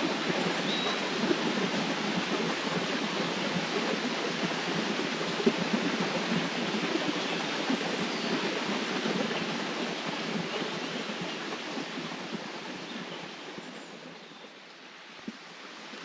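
River water flowing, a steady rushing that drops in level near the end and then starts to swell again.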